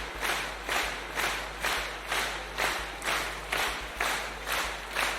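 Audience clapping in unison, a steady beat of about two claps a second.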